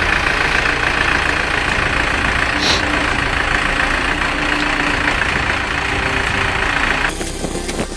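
A machine's engine running steadily, then cutting off abruptly about seven seconds in.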